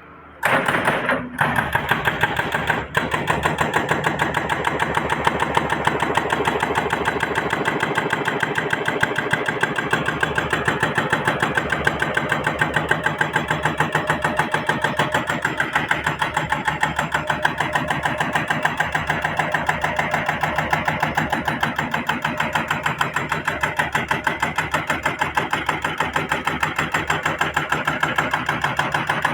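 Excavator's diesel engine running steadily close by with a fast, even throb. It comes on abruptly about half a second in.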